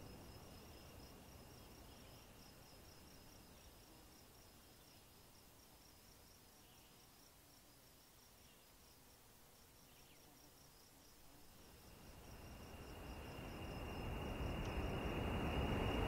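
Faint cricket-like insect chirping, a quick regular pulsing high note over a thin steady high whine and low hiss. Background music fades out at the start, and a rushing noise swells up over the last few seconds.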